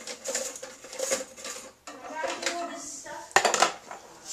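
Hard clinks and knocks of toilet tank parts being handled and pulled apart, with a quick rattle of sharp clicks about three and a half seconds in.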